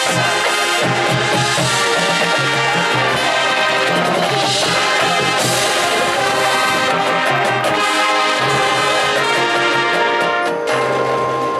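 High school marching band playing a loud, full passage, brass carrying the melody over drums. Near the end the sound thins and eases slightly.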